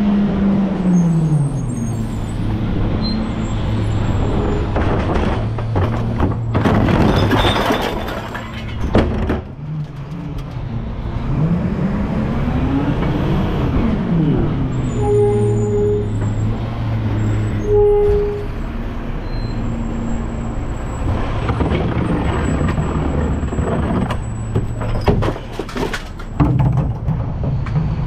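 Recycling truck's diesel engine running as the truck works its route: the engine note drops as it slows at the start, then revs up and back down about halfway through. Air brakes hiss twice, and two short beeps come in the middle.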